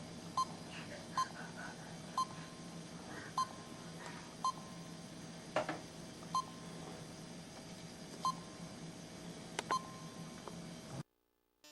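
Short electronic beeps, one at a time, about every second or two at irregular spacing, like the confirmation beeps of buttons being pressed on a device. There are a couple of sharp clicks among them, and the sound cuts out completely for a moment near the end.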